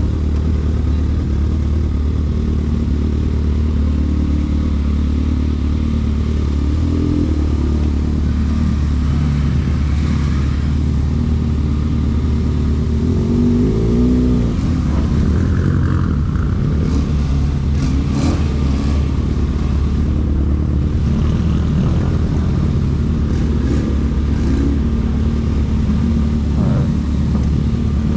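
Vehicle engines idling at a car meet, with one engine briefly revving about halfway through and a few sharp clicks a little after.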